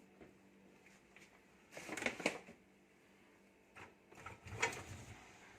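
A Zanussi dishwasher being opened after its finished cycle: a few sharp clicks and knocks about two seconds in, then another short cluster of knocks near the end.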